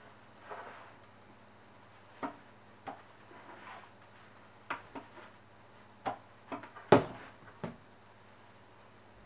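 A clothes iron and fabric being handled on a padded pressing board: soft sliding swishes and a string of light knocks and clacks, the loudest about seven seconds in as the iron is set down.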